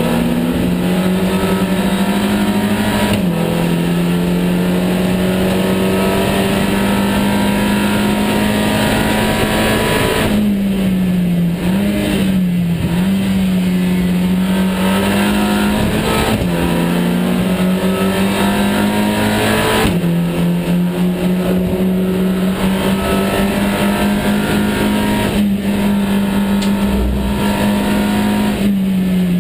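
SEAT Supercopa race car's engine heard from inside the stripped, caged cabin, running hard at high revs on track. The pitch holds steady for long stretches and drops briefly several times as the driver lifts, brakes or shifts.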